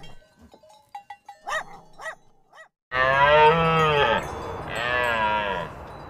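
Two long, wavering, moo-like animal calls, the first about three seconds in and the louder, the second about a second later, after a few faint small sounds.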